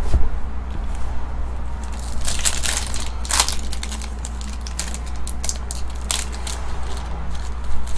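Foil trading-card pack wrapper crinkling and crackling as it is torn open and handled, a run of sharp crackles through the middle, over a steady low hum.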